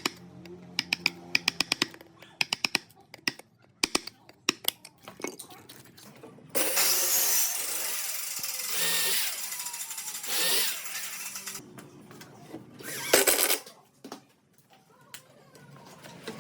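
Tool work on wood: clusters of rapid sharp taps for the first six seconds, then a power tool running steadily for about five seconds, and a short loud burst of it near the end.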